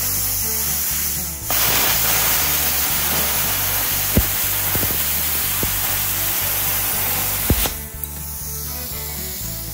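BestArc BTC500DP plasma cutter cutting through an aluminum garden trowel: a steady air hiss, then the arc strikes about a second and a half in and runs as a loud, even hiss with a couple of sharp pops. The arc cuts off near the end, leaving a softer hiss of air flowing through the torch.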